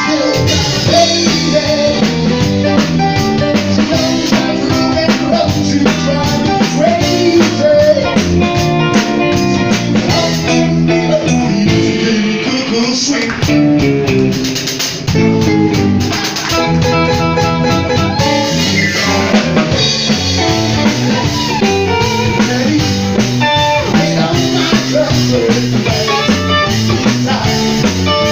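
Live band playing loudly: electric guitar over a drum kit, with a voice singing.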